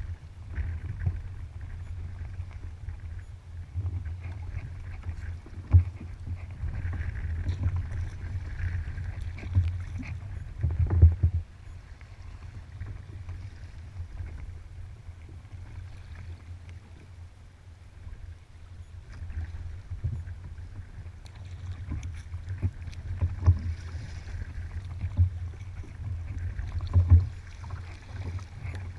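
Water splashing and lapping around a kayak on open water, with irregular sharp splashes or knocks, the loudest about a third of the way in and again near the end. A steady low rumble of wind on the microphone runs underneath.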